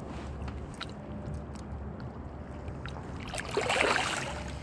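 Water lapping and dripping at the side of a kayak, then about three seconds in a short splash as a released small striped bass kicks away at the surface.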